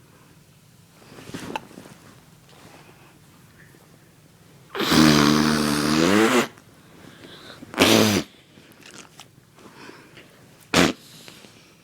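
Fart sounds: a loud buzzing one lasting about a second and a half, a shorter one about a second later, then a brief sharp burst near the end.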